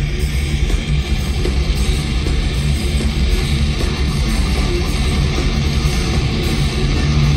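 Live heavy metal band playing loud, with distorted electric guitars and bass, heard from within the crowd.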